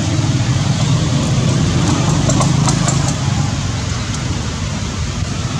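Steady low rumble of an idling motor-vehicle engine, with a few faint light clicks about two to three seconds in.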